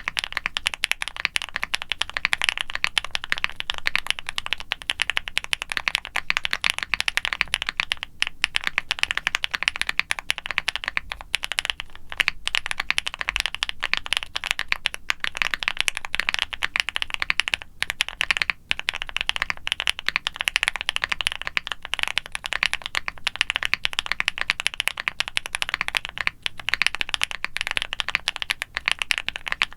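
Fast, continuous typing on a QwertyKeys QK65 mechanical keyboard with factory-lubed Gateron Smoothie linear switches, a polycarbonate plate, foam and silicone dampening, and GMK ABS doubleshot keycaps. It is a dense stream of keystroke clicks, broken by a few brief pauses.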